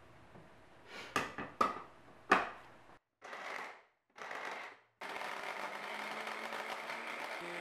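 Hard plastic clicks as the motor unit of an electric mini chopper is fitted onto its bowl, then two short pulses and a steady run as its blade chops lingonberries into a purée.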